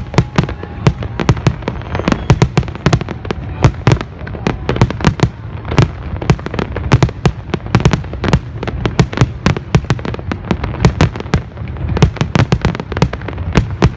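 New Year's fireworks display: a rapid, irregular barrage of loud bangs and cracks, several a second, over a continuous low rumble of distant explosions.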